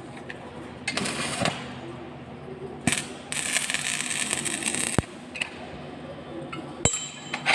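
Electric arc welding in short bursts: a crackling hiss about a second in and a longer one of nearly two seconds in the middle, with sharp metallic clicks and knocks in between.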